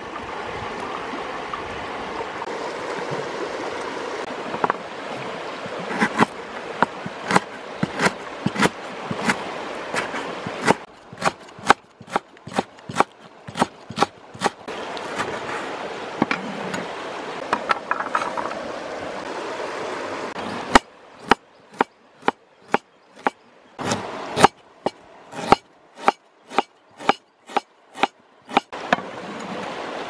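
Cleaver knocking on a wooden cutting board in quick, regular strokes, about two to three a second, as it slices lemongrass stalks. For the first several seconds a steady rushing noise lies under everything, and the knocks stand out alone once it drops away.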